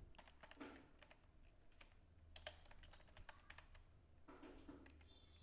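Faint, irregular keystrokes on a computer keyboard as text is typed.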